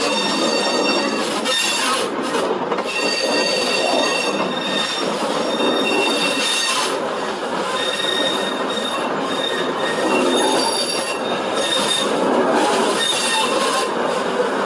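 A 1950s Class 101 diesel multiple unit passes close by, its underfloor diesel engines running under load in a steady loud rumble. High thin squealing tones come and go above it, typical of wheels squealing as the train takes the curve.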